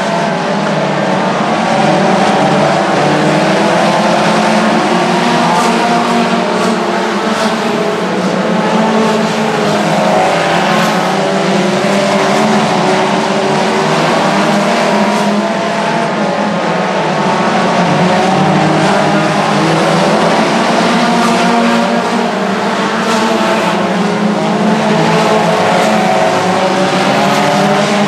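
A pack of race cars running at speed on a short oval track. Many engine notes overlap and rise and fall continuously as cars pass.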